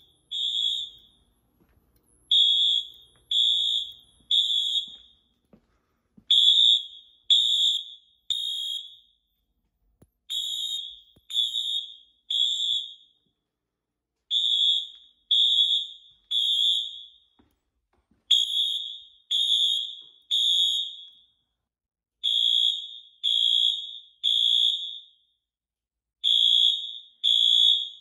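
Fire alarm sounder beeping a single high, clean tone in the temporal-three evacuation pattern. It starts about two seconds in, with three short beeps, a pause, and then the group again about every four seconds.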